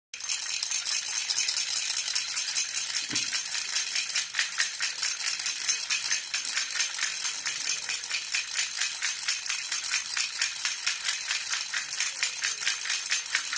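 Silver jhunjhuna baby rattle shaken without a break: a fast, even metallic jingle.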